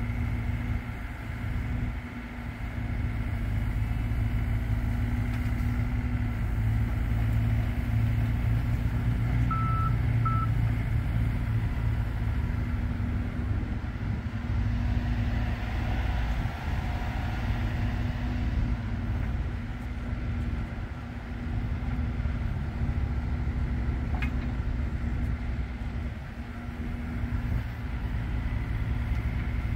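XCMG XE35U mini excavator's 25 hp diesel engine running steadily under hydraulic load as the machine swings and works its boom and bucket. Two short high beeps about ten seconds in.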